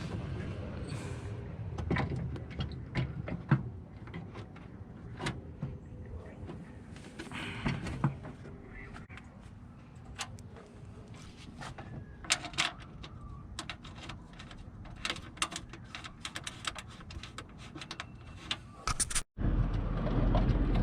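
Irregular clicks and knocks of hand work on a car's front end as a part is fitted back on, over a low background rumble.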